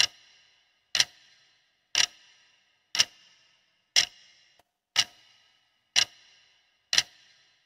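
Clock-tick sound effect marking a quiz countdown timer: a sharp tick with a short bright ring once a second, eight ticks in all.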